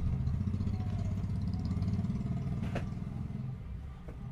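An engine idling, a low steady drone that fades out about three and a half seconds in, with a single sharp click near the three-second mark.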